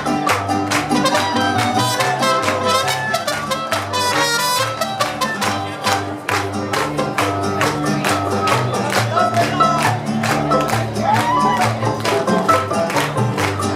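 Mariachi band playing: guitars strumming a steady rhythm over a stepping bass line, with a trumpet melody on top.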